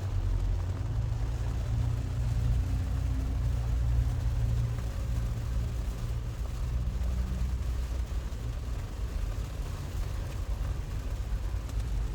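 Steady low road rumble inside a Tesla's cabin at highway speed.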